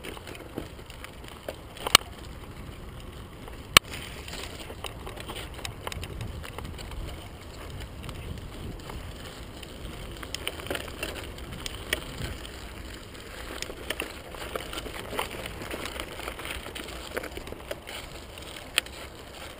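Merida TFS 800D mountain bike ridden over a dirt and gravel track: a steady low rumble of the tyres on the rough ground, with sharp clacks of the bike rattling over bumps, two loud ones a few seconds in.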